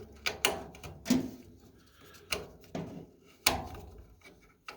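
A handful of sharp knocks and clicks at uneven intervals: hands fumbling at a gas furnace's controls while looking for the pilot setting.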